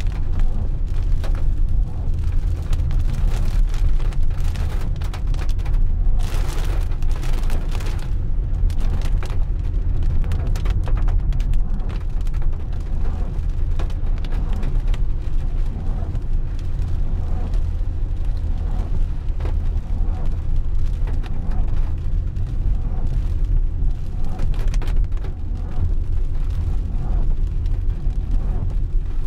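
Car driving on a wet road, heard from inside the cabin: a steady low rumble with tyre hiss over it. A brief louder hiss comes about six seconds in.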